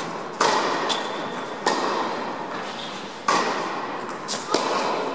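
Tennis ball being struck, four sharp hits about a second and a half apart, each ringing out with a long echo in the indoor hall.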